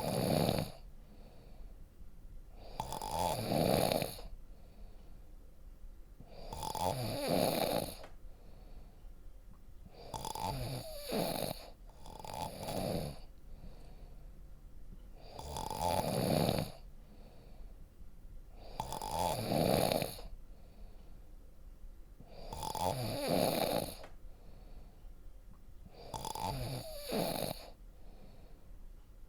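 A person snoring deeply, a loud snore of about a second coming in a steady rhythm roughly every three and a half seconds.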